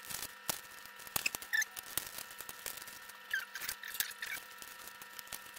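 Garlic cloves being peeled by hand: papery skins rustling and crackling, with scattered light clicks of cloves and a few short squeaks about a second and a half in and again about three and a half seconds in.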